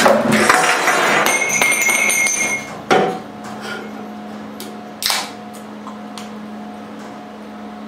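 A beer can handled and set down on a workbench: a clattering scrape with a metallic ring over the first three seconds, then two sharp knocks about two seconds apart.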